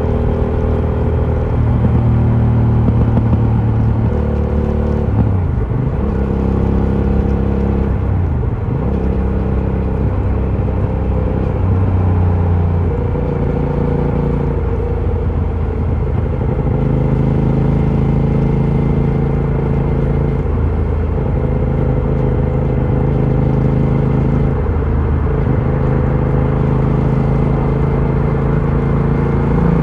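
Aprilia Shiver 750's 90-degree V-twin running through its stock exhaust, loud and continuous. The engine note drops and climbs again several times, changing with throttle and revs.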